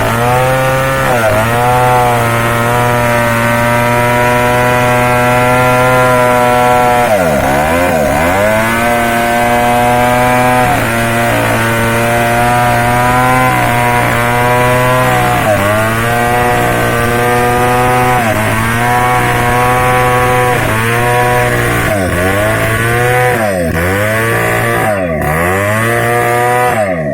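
Two-stroke chainsaw running at high speed while cutting wood into planks; its engine pitch drops and recovers several times as the chain bogs in the cut, with quick dips close together near the end.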